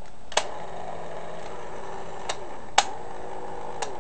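Dancerina doll's small motor whirring, its pitch sagging and recovering a few times, with about four sharp clicks from its gears. The motor and gears turn but the doll does not dance on her own, and the owner is not sure what's wrong.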